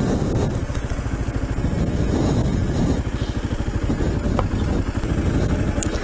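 Dual-sport motorcycle engine running at low speed with a steady, rapid pulsing exhaust note as the bike rolls slowly along a dirt track.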